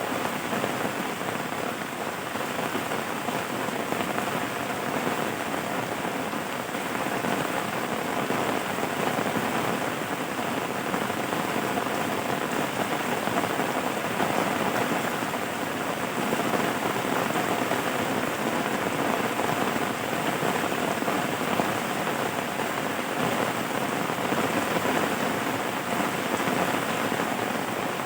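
Steady rain falling, an even, unbroken hiss with no sudden events.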